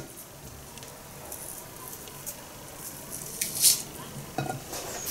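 Dry, papery vegetable skin crackling as it is peeled off by hand: a few short, sharp crackles, the loudest about three and a half seconds in.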